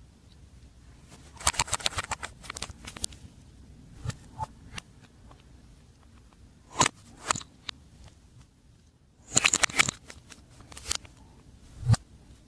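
Slime being squished and mixed by hand, with irregular bursts of sticky crackling and popping clicks and a few single snaps.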